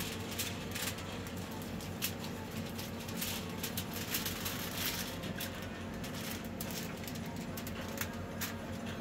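Metal tongs clicking and scraping against stainless-steel salad trays and a filled bread roll, with crinkling aluminium foil, over a steady low hum.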